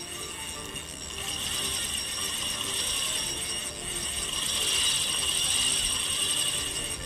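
Penn Spinfisher V 8500 spinning reel being cranked, its gears giving a steady high whir as line is wound in.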